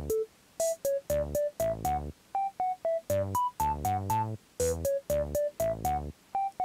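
Background music: a bouncy tune of short, clipped notes, about three a second, over bass notes and a light beat.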